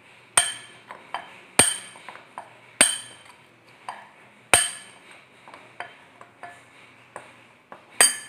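Metal spoon stirring a dry flour mix in a bowl, clinking sharply against the bowl five times, with lighter taps and scrapes between.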